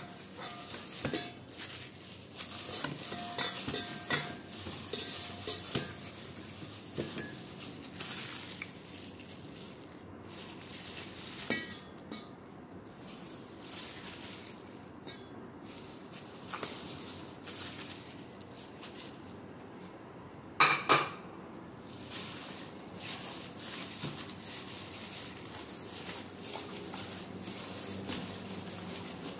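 Gloved hands mixing raw pork chops with a crumbly coating in a stainless steel bowl: plastic glove rustling, meat squelching and scattered light clinks of the bowl. Two loud knocks come close together about two-thirds of the way through.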